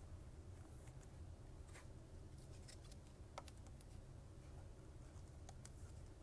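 Near silence: a steady low hum with a few faint clicks from trading cards being handled and flipped.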